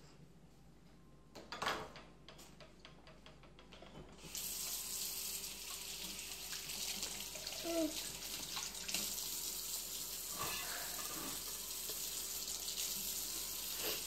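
Water tap turned on about four seconds in, then running steadily into a sink. A few clicks and knocks come before it.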